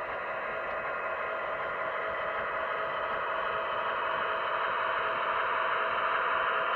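Model GE Evolution hybrid diesel locomotive and its passenger cars running on O-gauge FasTrack: a steady rolling rumble and whir of wheels and motors that slowly grows louder.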